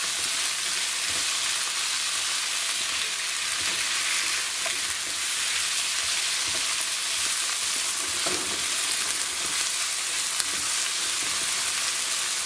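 Onions, mushrooms and mixed vegetables sizzling in a hot pan as they are stirred, a steady frying hiss with a few faint knocks of the utensil against the pan.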